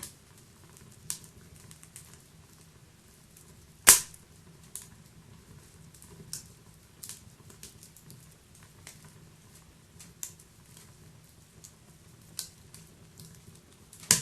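Wood fire burning: irregular crackles and pops over a low steady rush, with one sharp loud pop about four seconds in and another near the end.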